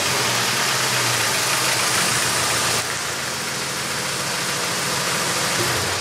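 Ford Escort ZX2's engine running at low speed as the car rolls up and stops, easing off a little about halfway through.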